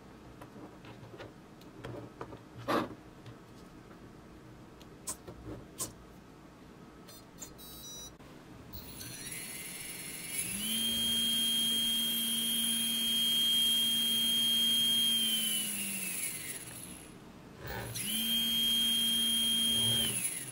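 Small brushless outrunner motor, driven through a brushless ESC, spinning up under throttle with a rising whine, holding a steady high whine for several seconds, then spinning down. It spins up again for a shorter second run near the end. A few light clicks come before it.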